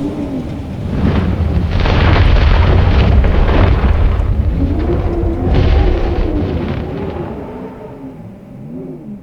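Howling blizzard wind with a wavering moan, swelling into heavy rumbling gusts about a second in and again around five and a half seconds, then dying away near the end.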